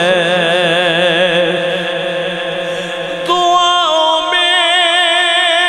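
A man's voice singing a naat into a microphone, holding a long wavering note, then starting a new drawn-out line about three seconds in.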